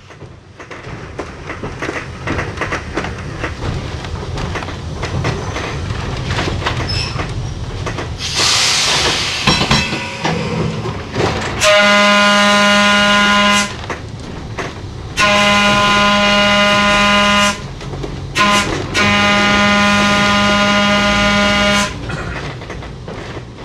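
Vintage electric railcar running along its track, with a brief hiss about eight seconds in. Its horn then sounds long, long, short, long: the grade-crossing signal.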